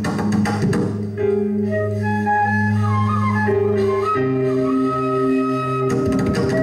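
Live band music. The drums drop out about a second in, leaving held chords with a flute-like melody gliding above them. The drums come back in near the end.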